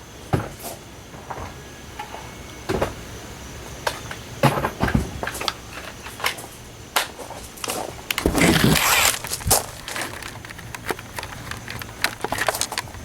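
Scattered knocks, clunks and clicks of tools and parts being handled in a small enclosed space, with a louder rustling scrape about eight seconds in.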